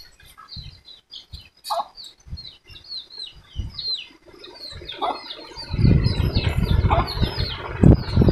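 Small birds chirping in quick repeated calls, each note falling in pitch, with a few lower calls now and then. From about halfway through, a louder low rumbling noise comes in beneath them.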